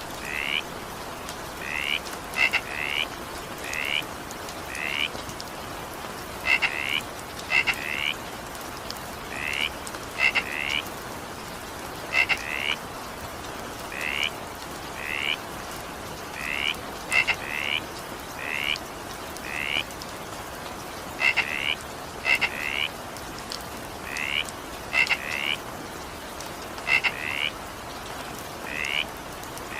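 A frog calling over and over, short high croaks about once a second and often in quick pairs. Underneath is a steady hiss of rain.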